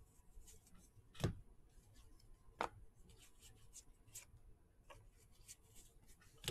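Faint ticks and rubs of trading cards being slid one by one off a hand-held stack, with two louder taps about a second and two and a half seconds in.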